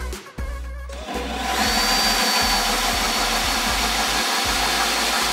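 An 18 V Bosch cordless drill with a diamond core bit starts up about a second in and grinds steadily through a Cristadur composite sink, with a thin high whine over the grinding. Background music with a beat runs underneath.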